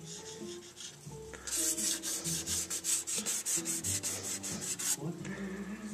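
Quick back-and-forth rubbing strokes of hand abrading on the edge of a guitar's binding, about six strokes a second. They start about a second and a half in and stop sharply near the end, knocking the sharp edge off the binding.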